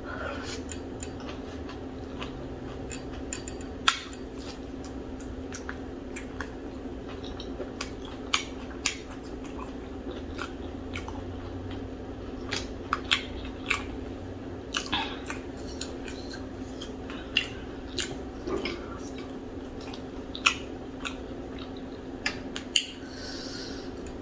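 Close-miked mouth sounds of eating fufu with okra soup: scattered wet chewing clicks and lip smacks over a steady low hum.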